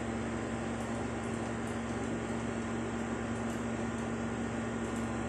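Steady mechanical hum of a running appliance, with a constant low tone over an even hiss.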